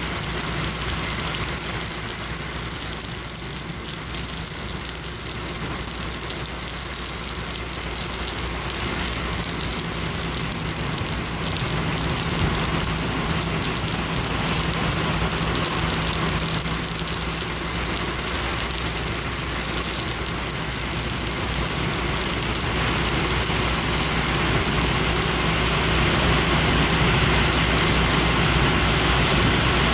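Steady rain falling on wet pavement, with a heavy engine idling underneath as a steady low hum. The sound grows somewhat louder over the last several seconds.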